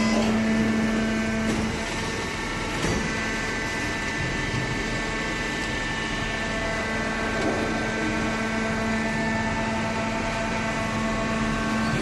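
Small hydraulic cardboard baler running: a steady hum from its electric motor and hydraulic pump, with a light click about three seconds in.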